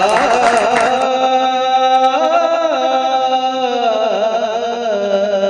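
Clapping that cuts off about a second in, followed by music: a single held melodic line that bends slowly up and down in pitch.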